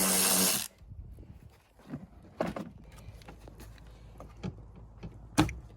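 Power drill running, stopping abruptly under a second in, followed by scattered light clicks and knocks, with one sharp knock near the end.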